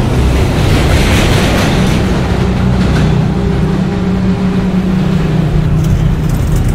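Subway train in a station: a loud, steady rumble with a steady hum underneath, and a rush of hiss about a second in.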